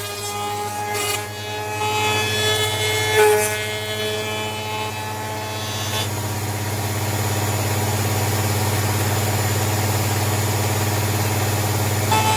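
Fox 1500 W router table's router motor running at speed while its bit cuts an edge profile along a piece of wood, a bit noisy; the whine dips and shifts in pitch several times in the first few seconds as the cut loads the motor, then settles into a steadier, noisier cutting sound from about six seconds in.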